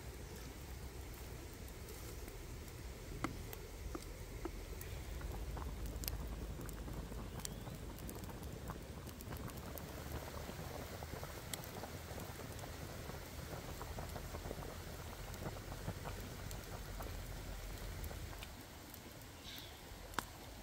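Chicken curry boiling in a large wok over a wood fire: steady bubbling with scattered sharp pops, getting quieter near the end.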